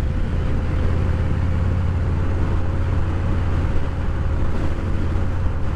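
Harley-Davidson Fat Bob 114's Milwaukee-Eight V-twin running at a steady speed under way, heard through Rinehart 4.5-inch slip-on mufflers as a deep, even exhaust drone.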